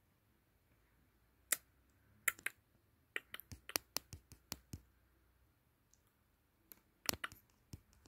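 Light, sharp clicks and taps in irregular clusters: one at about a second and a half, a quick flurry from about three to five seconds in, and another group near seven seconds.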